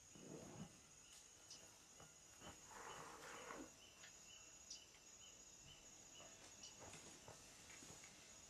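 Faint rainforest insect sound: a high, steady insect trill that breaks off and resumes, with short chirps repeating. A brief soft rustle comes about three seconds in.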